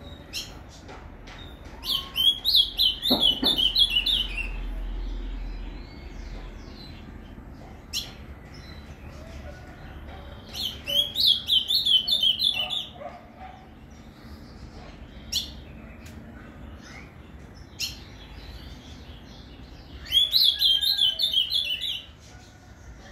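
Ultramarine grosbeak (azulão) singing its 'Paraná' song type: three phrases, each a quick run of notes lasting about two seconds, coming roughly every nine seconds, with a few single short notes in between.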